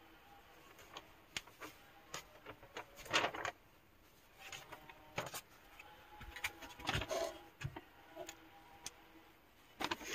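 Paper rustling and crinkling as a large folded instruction sheet is handled, in short irregular bursts with scattered clicks and taps.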